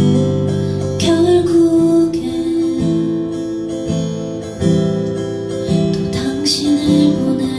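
Acoustic guitar strummed, playing a slow song with chords changing every second or so.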